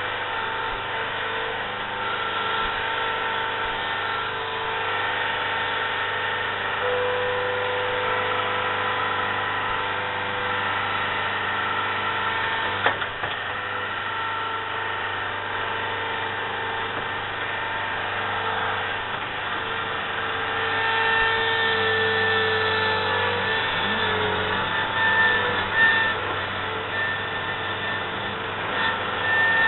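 Engine and hydraulics of a compact earthmoving machine working steadily, with whining tones that shift in pitch and grow louder a little past two-thirds of the way through. There is a sharp knock about halfway through and a few more clanks near the end.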